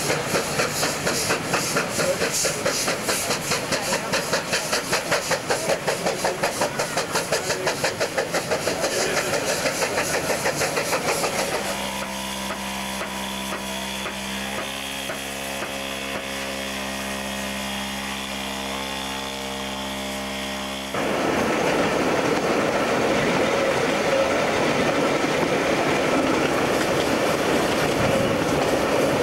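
Steam locomotive working hard, its exhaust beating in rapid, even chuffs at about three a second. About twelve seconds in, this gives way to a steady multi-toned drone lasting about nine seconds. Then comes the steady rumble and clickety-clack of the train's carriages running along the track.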